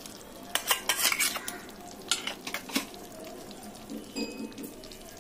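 A spoon scraping and clinking against the metal pressure-cooker pot as thick ground coconut paste is scraped onto hot cooked vegetables: a handful of sharp clicks in the first three seconds. After that comes a faint, steady hiss.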